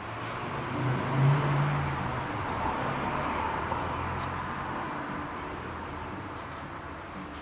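A motor vehicle passing by: low engine hum and road noise that swell about a second in and slowly fade away.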